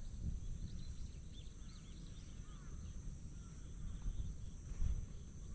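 Outdoor ambience of small birds chirping in many short, quick calls over a steady high-pitched ringing, with a low rumble underneath that swells briefly near the end.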